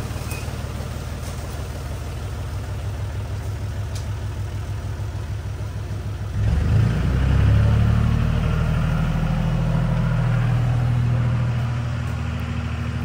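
John Deere 5300 tractor's diesel engine running steadily. About six seconds in it revs up and gets louder as it works under load pulling out a shrub, then eases off slightly near the end.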